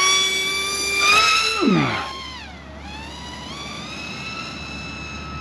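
Small electric RC plane's motor and propeller whining at high throttle. The whine rises in pitch about a second in, then drops in pitch and fades sharply as the plane flies away, leaving a quieter, steady whine that slowly climbs in pitch.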